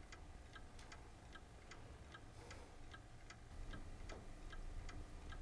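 A mechanical clock ticking steadily and faintly, about two to three ticks a second, over a low room hum.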